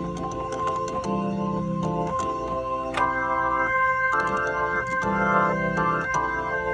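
Organ chords played through a Leslie 2101 rotating speaker cabinet, the held notes wavering as the rotors turn. The chords change about once a second, and about three seconds in a click sounds as higher notes are added.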